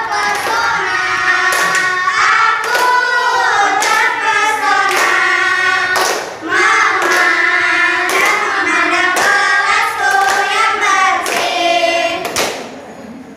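A group of schoolchildren singing a welcome chant-song (yel-yel) together in unison, with long held, gliding notes and a sharp hand clap about once a second. The singing stops near the end.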